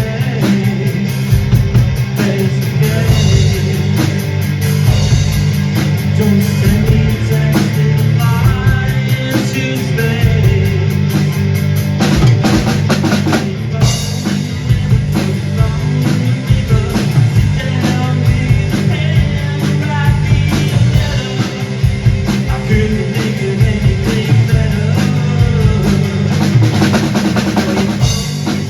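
Live rock music from a two-piece band: guitar over a drum kit keeping a steady beat, with a thicker run of drum hits about twelve seconds in.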